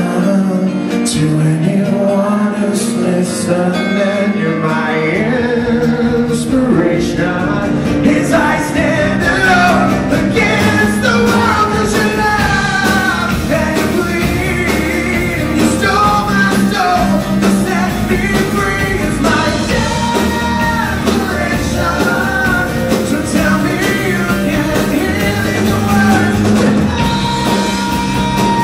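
Live rock band playing: a male lead singer over strummed acoustic guitars, electric bass and drums. The deep bass fills in about five seconds in.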